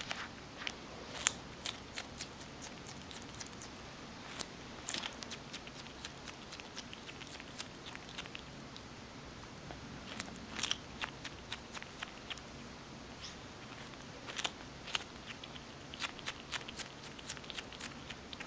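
Skunk chewing and biting at food, an irregular run of small wet clicks and crunches from its mouth, some coming in quick clusters.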